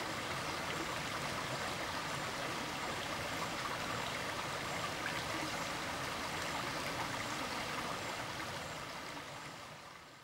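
Steady rushing of flowing stream water that fades out near the end.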